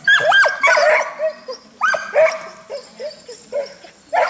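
A dog barking over and over in short, high-pitched yips, loudest in the first second and again around two seconds in.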